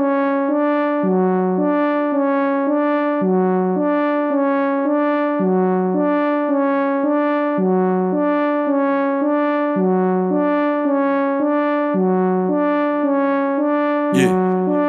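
Music: an electric-piano riff, a short phrase of chords that repeats about every two seconds with no drums, and a brief sweeping whoosh near the end.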